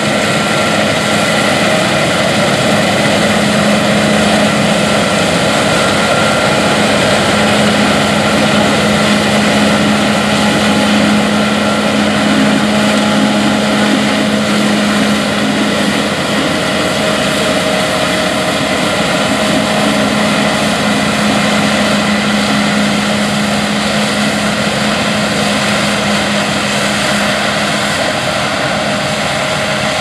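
CLAAS Lexion 8600 TerraTrac combine harvesting soybeans, its 12.8-litre MAN D26 diesel and threshing machinery running steadily under load, with a constant low hum.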